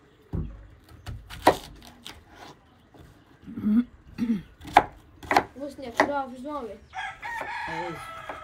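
Knife cutting an onion on a wooden cutting board, sharp taps of the blade on the board, while chickens cluck and a rooster crows, its longer call near the end.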